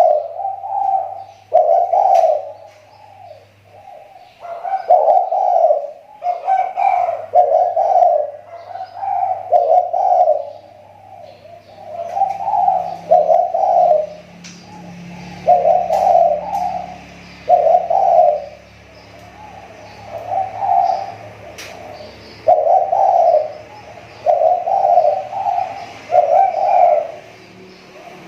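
Spotted dove (tekukur) lure bird cooing over and over, its phrases made of short, mellow coo notes about a second long, given in groups. Its calling is coming back into form after it had gone off voice. Fainter high chirps of small birds sound above it.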